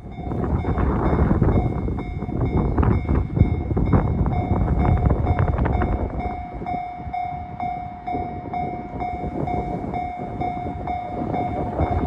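Japanese railway level-crossing alarm ringing in a steady, fast repeating beat: the crossing is closed to warn of an approaching train. Under it is a loud, gusty rumble of wind on the microphone.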